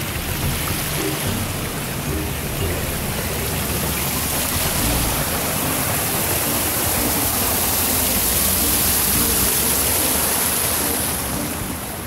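Water spilling over the stone ledges of a small stepped waterfall into a pool: a steady rushing splash, a little louder through the middle and easing near the end.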